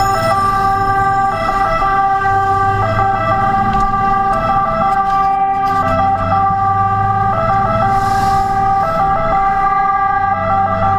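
Fire engine's two-tone siren sounding continuously, switching back and forth between two pitches, heard from inside the cab over the truck's diesel engine rumbling as it drives.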